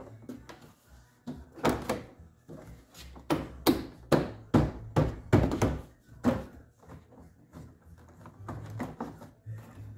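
Plastic interior door panel of a 1990s Ford truck door being worked into place by hand: about a dozen sharp knocks and thumps, bunched in the middle of the stretch, then lighter rustling and handling.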